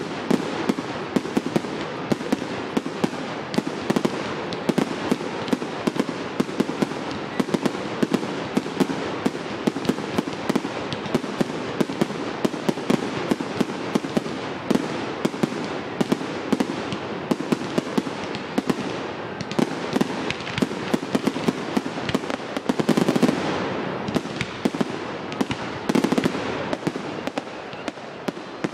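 Aerial fireworks going off in a dense, continuous run of sharp bangs and crackles, several a second. The barrage swells louder about two-thirds of the way through.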